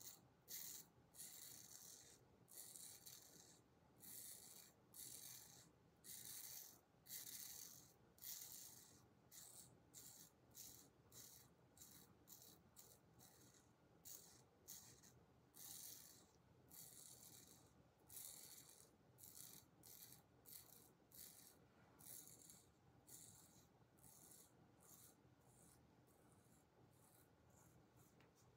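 Faint short scraping strokes of a Kampfe Bros Star safety razor's blade cutting stubble on the neck, roughly one a second, growing sparser near the end.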